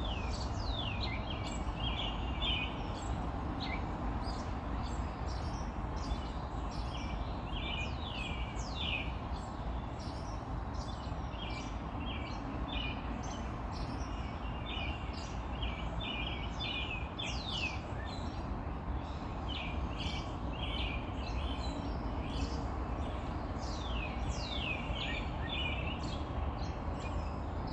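Several birds chirping and singing: sharp down-slurred calls and quick runs of short notes, over a steady low background rumble.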